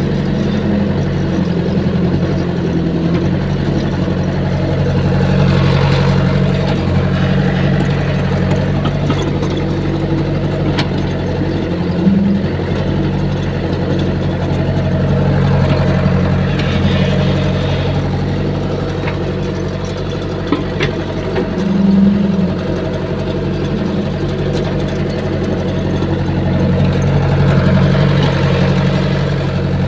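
Caterpillar excavator's diesel engine running steadily while the machine digs, heard from the operator's cab, with a couple of short louder bumps along the way.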